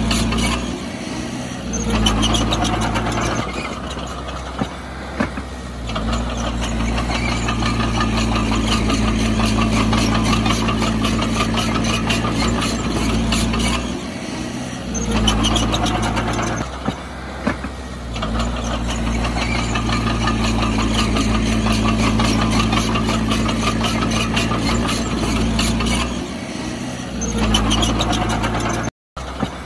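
Heavy diesel engine of earth-moving machinery running loud and steady. It eases back briefly every few seconds as the load comes and goes. The sound cuts out for a split second near the end.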